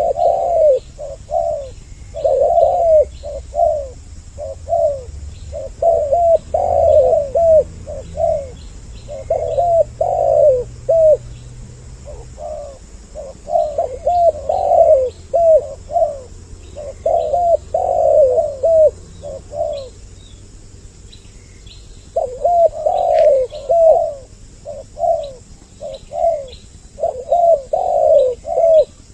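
Spotted doves (tekukur) cooing over and over in short groups of notes, the male and female voices overlapping. The calls break off for about two seconds a little past the middle, then resume.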